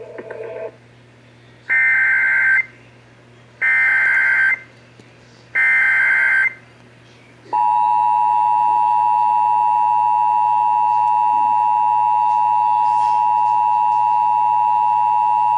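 Emergency Alert System activation over AM radio. Three short bursts of the digital SAME header data come about two seconds apart, then, from about halfway, the steady two-tone EAS attention signal sounds, with a faint low hum underneath.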